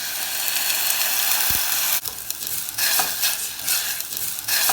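Onion, garlic, ginger and berbere sizzling in hot oil in a pot just after a little water is added. The hiss swells over the first two seconds, drops abruptly, then comes back in uneven surges as the pot is stirred.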